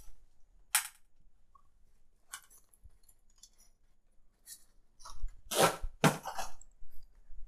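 Handling noises: a sharp click about a second in, a few faint rustles, then a louder burst of rustling and knocking between about five and a half and six and a half seconds in.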